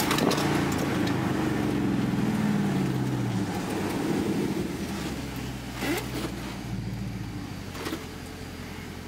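2013 Dodge Charger SRT's 6.4-litre HEMI V8 heard from inside the cabin as the car slows for a red light. The engine note falls as the revs drop, then settles to a low idle. There are two brief clicks in the second half.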